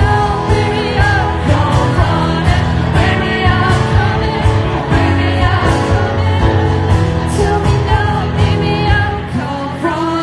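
Live pop band playing, with drums keeping a steady beat and a singing voice over the instruments.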